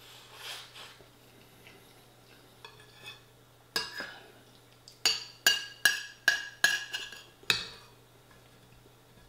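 Metal spoon clinking and scraping against a ceramic bowl while the last of the rice is scooped up: one sharp ringing clink about four seconds in, then a quick run of about seven more, two or three a second.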